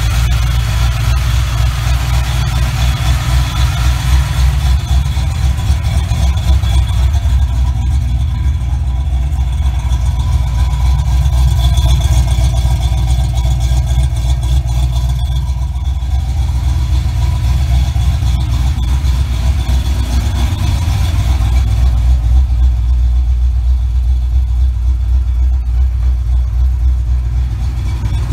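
A 1988 Mustang GT's 5.0 L small-block Ford V8 with a Trick Flow cam, idling steadily. The idle is set high while the new Holley Terminator X fuel injection is being tuned.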